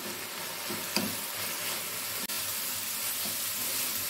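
Prawns and crushed coconut masala frying in a pan with a steady sizzle while a spatula stirs and scrapes through them, a light tap about a second in. The sizzle is louder now the cooking water has dried off.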